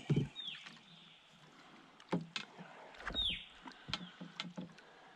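Knocks and bumps against a canoe's hull as a landing net holding a salmon is worked alongside it, with light water sloshing. Two short falling squeaks sound, one near the start and one about three seconds in.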